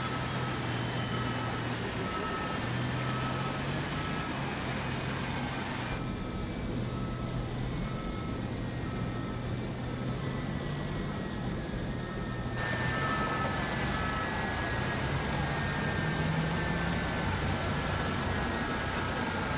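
Airport ramp noise: a steady jet-engine hiss and rumble with a turbine whine sliding slowly down in pitch, as a jetliner's engines wind down. Over it a ground vehicle's reversing beeper sounds about twice a second for long stretches.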